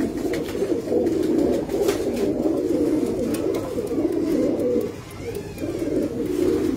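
Many domestic pigeons cooing together in a loft, a continuous overlapping low warble that dips briefly about five seconds in.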